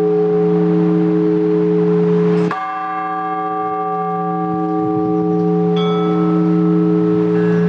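Orthodox church bells ringing, with the large bells' deep tones hanging on. A fresh strike about two and a half seconds in renews the ring, and smaller, higher bells are struck twice near the end.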